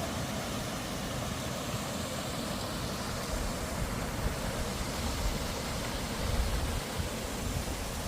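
Steady rush of water falling off a rock bluff, with a low rumble swelling about six seconds in.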